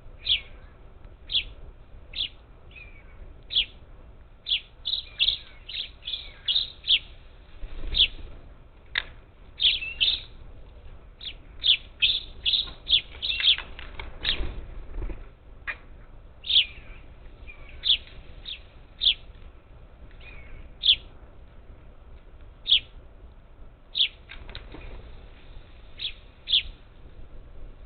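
A flock of monk parakeets giving short, sharp squawking calls, one after another at irregular intervals, coming thick and fast through the middle. Two low, dull thumps or flutters stand out, about eight seconds in and again around fourteen seconds.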